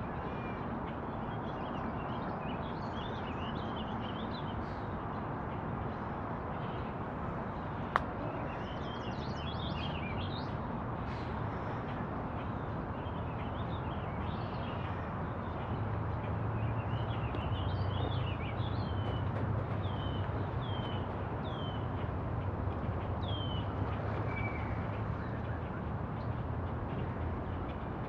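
Small birds chirping and singing, with many short notes and a run of short falling calls later on, over a steady outdoor background with a low rumble that grows louder in the second half. A single sharp click about eight seconds in.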